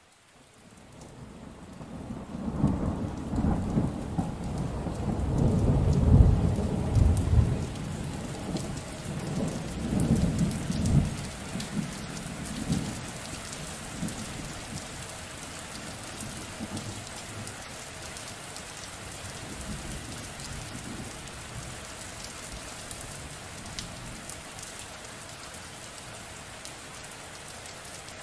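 Rain falling steadily with a long, deep rumble of thunder that builds over the first few seconds, peaks about six seconds in, and rolls away by about thirteen seconds. The sound fades in from silence at the very start.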